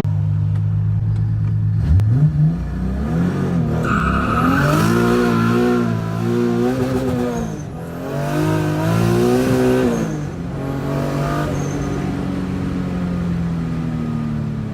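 Turbocharged 2JZ-GTE straight-six in a built Toyota Supra making a hard acceleration run: after about two seconds at a steady note the revs climb, the pitch drops at a gear change about eight seconds in, climbs again, and falls away from about ten seconds in as it lets off.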